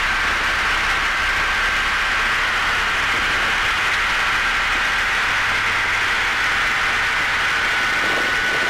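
Microlight aircraft engine and propeller running at high power for the takeoff run: a loud, steady drone with a thin high tone over a rushing noise.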